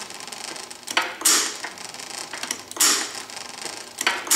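McCormick-Deering Model M 1½ hp engine being turned over slowly by hand, its flywheel and works clicking and creaking, with a short hissing rush about every one and a half seconds, three times.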